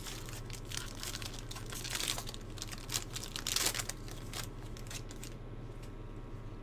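Trading-card pack wrapper crinkling and being torn open, a crackling that goes on for about five seconds and then stops.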